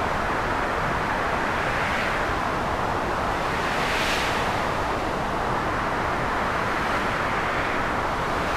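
Heavy rainstorm: a steady, dense hiss of rain, swelling louder and brighter now and then.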